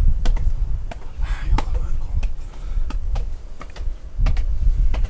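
Footsteps of a hiker climbing a rocky mountain path, sharp clicks at an even walking pace of about one and a half steps a second, over a steady low rumble on the microphone.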